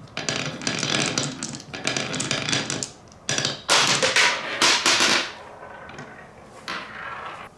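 Marbles rolling down a wooden HABA wavy slope track, clattering against the wooden grooves and clicking into the marbles queued ahead of them. The clatter is dense for about five seconds, with a brief pause about three seconds in, then thins to a few scattered clicks as the track fills up.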